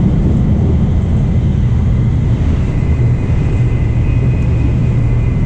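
Inside the passenger car of a Nozomi Shinkansen bullet train running at speed: a steady, loud low rumble with a faint high whine running through it.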